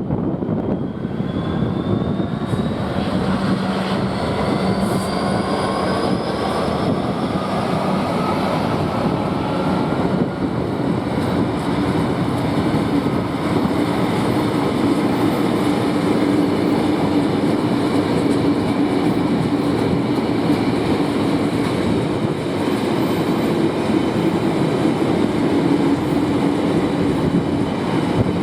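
Diesel-hauled freight train running past: a steady rumble of locomotive and wagons, with a whine that rises in pitch over the first several seconds.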